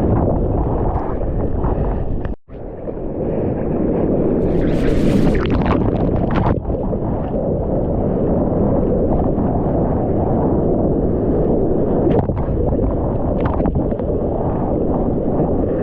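Surf and whitewater heard from a GoPro in the waves: a loud, steady rushing rumble of breaking water and water churning around the camera housing. The sound drops out sharply for a moment about two seconds in, and a hissing splash rises around five seconds.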